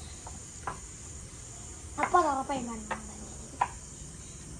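Crickets chirping steadily in a high, even chorus. A brief voice sounds about two seconds in, and there are a few light clicks.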